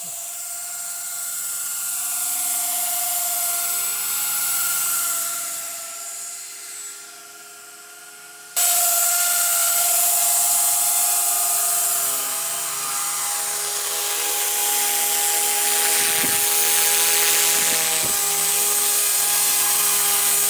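Blade 130X electric RC helicopters flying, their motors and rotors giving a high, steady whine like a small drill. It fades a few seconds in, then jumps suddenly louder about eight seconds in as one flies close, with two brief low thumps near the end.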